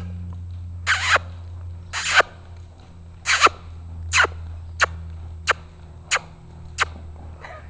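Palomino Quarter Horse stallion trotting on a lunge line: a string of short, sharp sounds over a steady low hum, about one a second at first, then coming closer together, about every two-thirds of a second.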